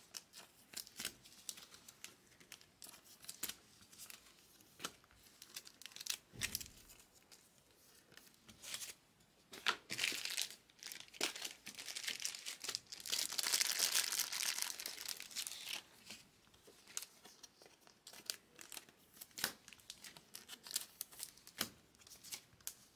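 Trading cards and foil pack wrappers being handled: crinkling and tearing of wrapper, with short clicks and slides of cards, and one longer crinkling tear of about two seconds a little past the middle.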